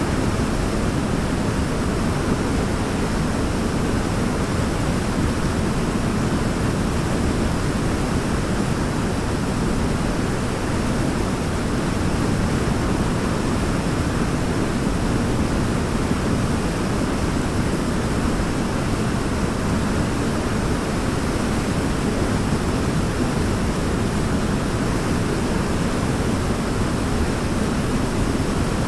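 Waterfall: a steady, even rush of falling water, heaviest in the low range, without a break.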